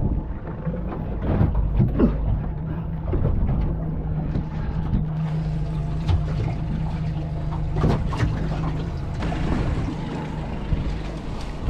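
Small boat's outboard motor idling with a low, steady hum. Irregular knocks and thumps sound over it.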